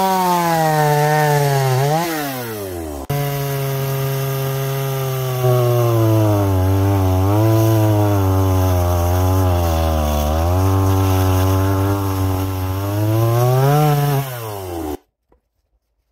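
Stihl MS170, a small two-stroke chainsaw, cutting wood under load; its engine pitch sags as the chain bogs in the cut and climbs again as it frees. It stops abruptly near the end.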